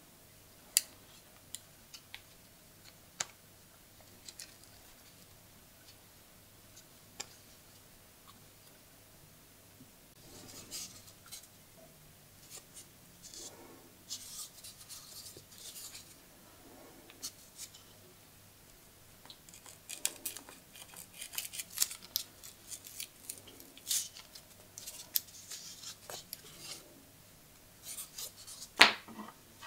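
Small folding scissors of an old Soviet multi-tool pocket knife snipping and scraping through a strip of leather in a series of short crisp cuts. Before that come a few sharp metal clicks of the knife's tools being opened and closed, and one louder snip near the end.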